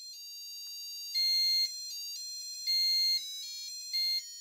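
Electronic buzzer of an STC89C52 laser harp kit playing a melody of high, ringtone-like beeping notes that change pitch every fraction of a second. Three notes stand out louder: about a second in, just past the middle, and near the end.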